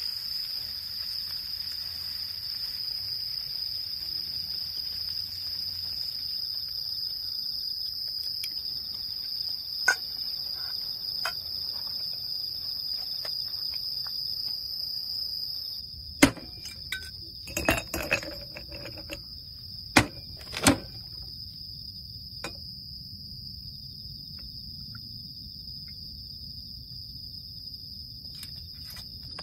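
Crickets chirping in a steady, unbroken high-pitched chorus. About halfway through, a few sharp clicks and knocks sound over it.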